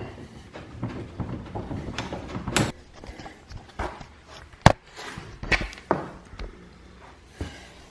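Tools and exhaust parts on a motorcycle knocking and clanking as the exhaust support bolt is worked loose and the exhaust pulled off: a rumbling of handling, then a handful of separate sharp knocks, the loudest a little past halfway.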